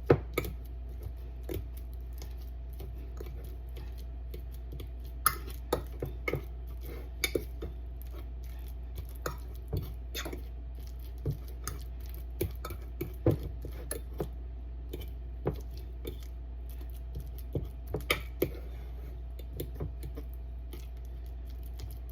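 A ripe banana being mashed in a bowl, with irregular clicks and taps of the utensil against the bowl, over a steady low hum.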